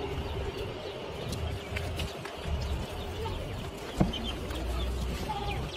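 Goats eating chopped green fodder at a wooden trough: small crunching ticks from their chewing, with a single knock about four seconds in. Small birds chirp now and then over a steady hum.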